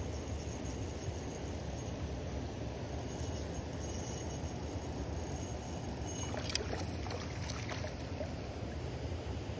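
Water splashing as a hooked trout thrashes at the surface and is scooped into a landing net, a cluster of sharp splashes in the second half, over a steady low outdoor rumble.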